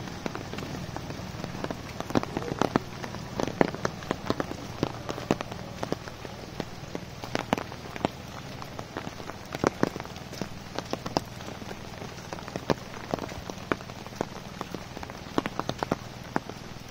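Monsoon rain falling steadily, a constant hiss broken by many irregular sharp taps of large drops landing close by.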